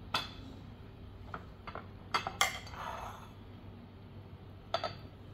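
A metal spoon clinking against a glass dish of dhokla batter, and dishes knocking together: about six sharp clinks, the loudest pair a little over two seconds in.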